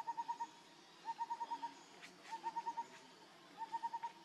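A bird calling: a quick run of five or six short, even notes, repeated four times at about one-and-a-quarter-second intervals.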